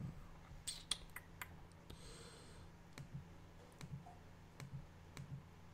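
Faint computer mouse clicks, a few scattered irregularly, over a low steady hum.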